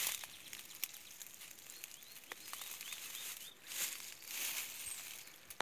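Leaves of tall forage grass rustling in patches that come and go, with scattered small clicks and a short run of faint high chirps about halfway through.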